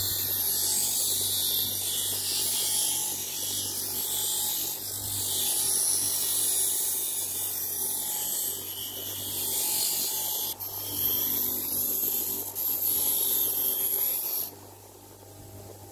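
Bosch GBG 35-15 bench grinder running with a steady motor hum while the metal ferrule of a wooden tool handle is held against its spinning wheel, giving a steady high hiss of metal being worked on the wheel. The hiss cuts off near the end as the piece is taken away, leaving only the motor hum.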